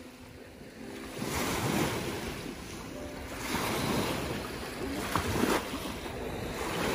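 Lake Superior waves washing onto the beach, surging up in three swells a couple of seconds apart.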